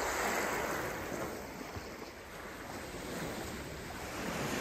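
Small lake waves washing onto a sand and pebble beach, a steady wash that swells near the start and again near the end.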